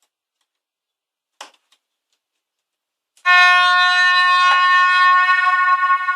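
RC ship horn sound effect: after a short click, one long, steady horn blast starts about three seconds in and is still sounding at the end.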